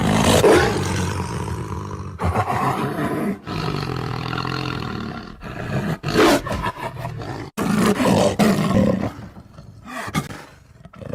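Werewolf growl sound effect: a run of deep, rough monster growls and roars with short breaks between them, starting suddenly and quieter near the end.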